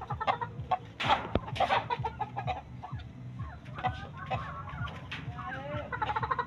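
Chickens clucking, with sharp slaps and scuffles as two Shamo gamecocks fight. The clucking calls grow busier in the last couple of seconds.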